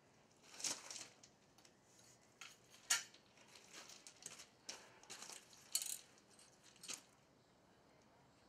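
A steel crucible and tongs being set down on gravel after the pour: a string of sharp metallic clinks and clatters mixed with crunching gravel, the loudest about three and six seconds in.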